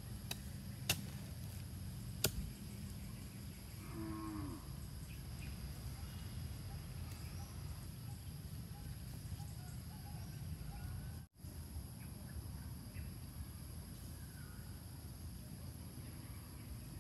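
Outdoor ambience with a steady low rumble and a steady high drone. Two sharp clicks come in the first few seconds, and one short animal call about four seconds in.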